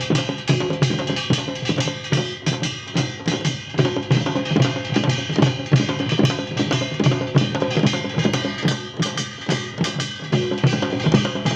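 Drumming: a fast, dense run of drum strikes over pitched instruments.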